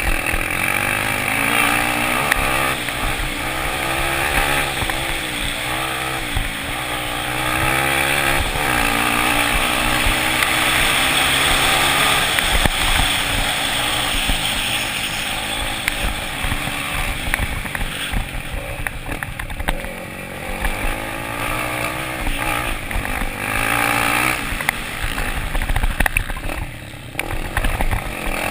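Dirt bike engines racing, their revs rising and falling again and again as the riders accelerate, shift and brake.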